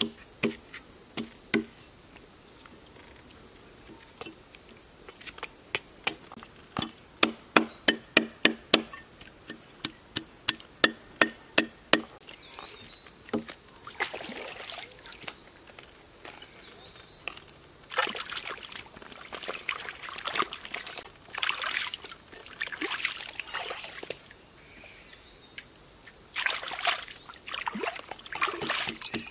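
Knife cutting through raw vegetables held in the hand, a run of sharp cuts about two a second between roughly six and twelve seconds in, followed by splashing and sloshing of shallow stream water as the vegetables are handled. A steady high insect drone runs underneath throughout.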